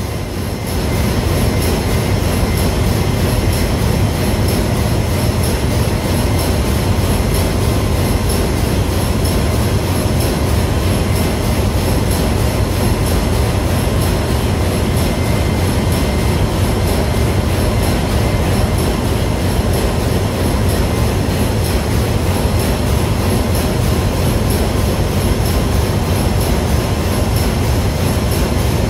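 Loud, steady machinery drone of a ship's engine room, with a fast even pulsing and a few steady high whines over it. It grows a little louder about a second in.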